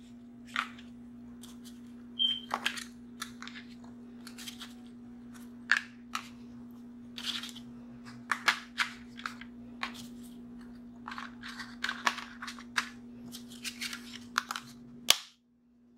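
Handling of a disposable aluminium foil pan and lasagna sheets being laid into it: irregular short crinkles, rustles and clicks over a steady low hum. All sound cuts out about a second before the end.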